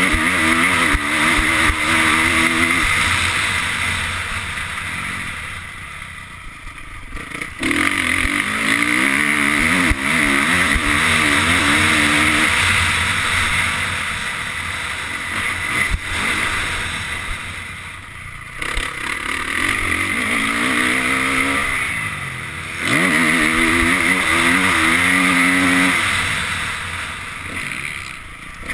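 Honda CRF450 motocross bike's four-stroke single-cylinder engine heard on board, revving up through the gears and shutting off repeatedly. The throttle is off and the sound drops away for a moment about 6 s, 18 s and 21 s in. A steady rush of wind and track noise runs under it.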